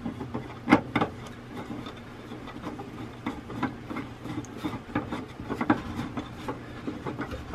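Wooden table leg being screwed by hand into a metal mounting plate on a pine panel: wood and metal rubbing with irregular small clicks, two louder knocks about a second in.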